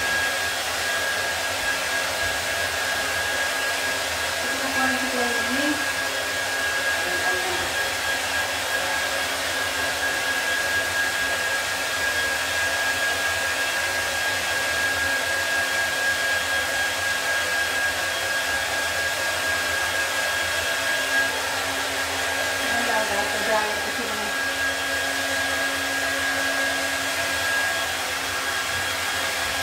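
Handheld hair dryer blowing steadily on a wet cat's fur, an even rush of air with a steady whine running through it.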